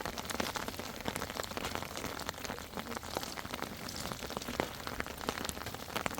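Steady rain falling, with many separate drops ticking on a surface.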